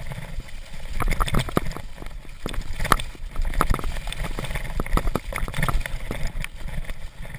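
Mountain bike ridden over a wet, slushy snow-covered trail: the tyres splash through slush and the bike rattles over bumps, with many sharp knocks and clicks over a steady rumble.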